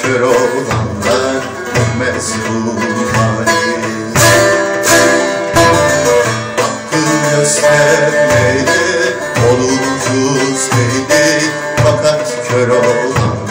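Bağlama (saz) and darbuka playing a Turkish folk tune (türkü) together: a plucked saz melody over a steady darbuka rhythm.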